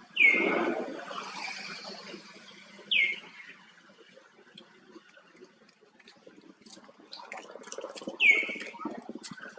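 Three short, high calls, each sliding quickly downward in pitch: one at the start, one about three seconds in, and one near the end. The first is followed by a second or so of scuffling noise.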